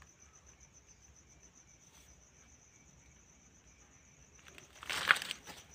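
Night insect, a cricket, trilling steadily in a thin, high, evenly pulsing tone. About five seconds in, a brief loud rustle of handling noise breaks in.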